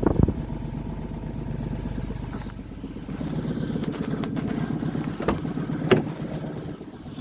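Opel Corsa 1.0 three-cylinder engine running steadily, a little louder from about three and a half seconds in. There is a knock at the start and two sharp clicks near the end.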